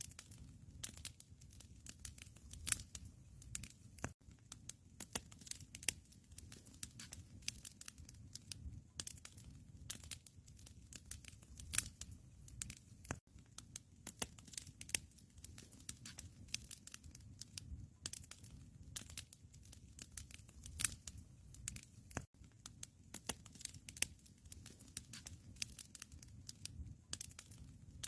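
Wood fire crackling in a fireplace: irregular sharp snaps and pops over a low steady rumble of the flames.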